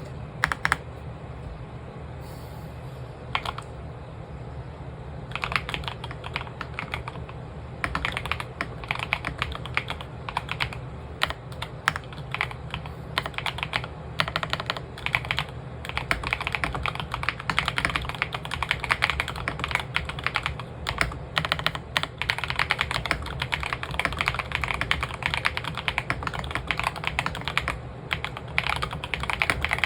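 Typing on an AS87 keyboard: a few single keystrokes at first, then steady, fast typing from about five seconds in, with a low hum underneath.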